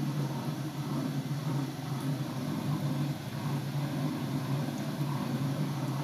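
Siemens front-loading washing machine running mid-cycle, its drum turning with a steady low motor hum.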